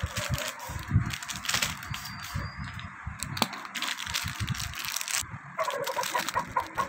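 Plastic wrapping crinkling and crackling as a row of small bottles wrapped in it is picked up and handled, with light handling knocks.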